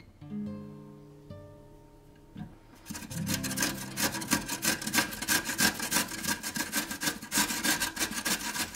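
Acoustic guitar music, then from about three seconds in a potato being grated on a stainless steel box grater: fast, rhythmic rasping strokes, louder than the music.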